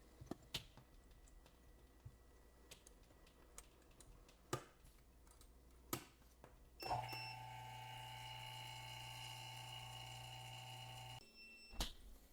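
A few light clicks and taps, then the screen laminating machine hums steadily for about four seconds, starting and stopping abruptly, followed by one more click.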